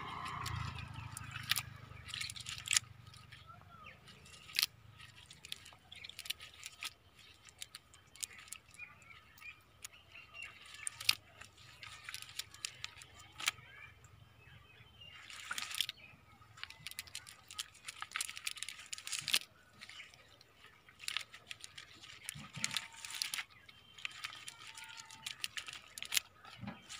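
Irregular small clicks and crackles of a mesh fishing net and the wet leaves and debris caught in it being picked apart by hand.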